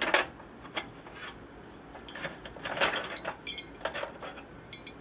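Steel chisels and punches clinking and clattering against each other as they are picked up and handled, a series of sharp clinks, a few with brief metallic ringing.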